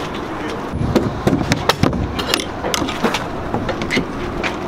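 A plywood shipping crate being taken apart: a run of irregular wooden knocks and clicks from about a second in as its lid and panels are handled and unfastened.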